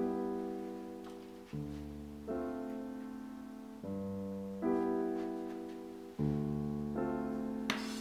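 Background piano music: soft chords, each struck and left to fade, a new one coming every second or so.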